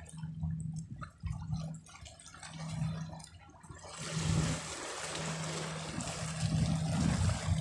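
Small sea waves washing and trickling over shoreline rocks, swelling into a steady loud wash about four seconds in, with a low rumble underneath.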